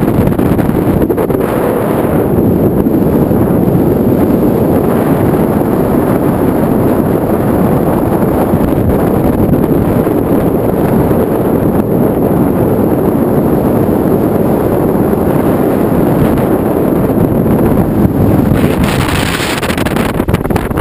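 Loud, steady wind buffeting the microphone, mixed with the running noise of a vintage car on the move, with a brief brighter hiss near the end.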